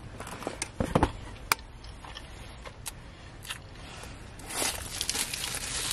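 Handling noises inside a car: scattered clicks and a couple of dull thumps about a second in, then a paper food wrapper rustling from about four and a half seconds, over a low steady hum.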